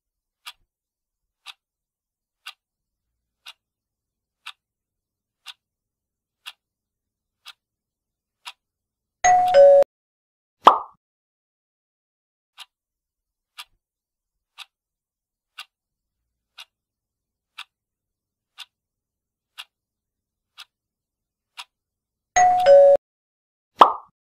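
Countdown-clock sound effect ticking about once a second. Twice the ticking stops for a loud two-note falling chime that marks time up, followed by a short sharp sound dropping in pitch as the answer is revealed.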